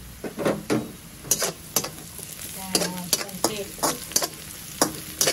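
Metal slotted spatula scraping and knocking against a stainless honeycomb wok as sliced onions are stir-fried. About a dozen sharp clicks of metal on metal sit over a steady sizzle of frying.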